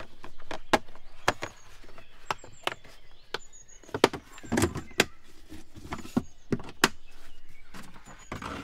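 Green plastic folding portable toilet being unfolded by hand: a string of sharp plastic clicks and knocks as its collapsible walls are opened out and pressed into place, with a duller knock about four and a half seconds in.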